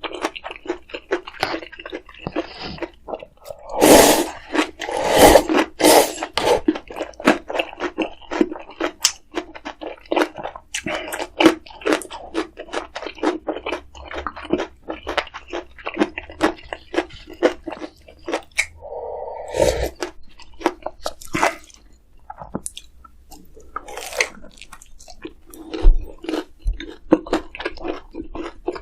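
Close-miked eating: a person chewing and crunching food with many irregular crisp clicks, and loud crunchy bites about four to six seconds in.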